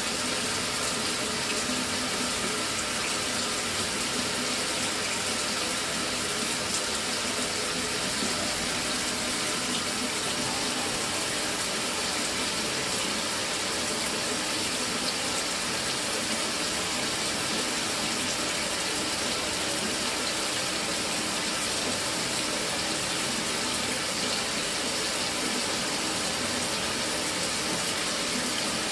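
Mira electric shower running, water spraying steadily without cutting out after its solenoid valve has been replaced.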